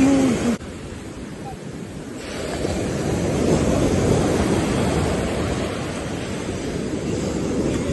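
Ocean surf washing on a beach, a steady rushing wash. It drops suddenly about half a second in, then swells back up over the next couple of seconds as a wave comes in and slowly eases.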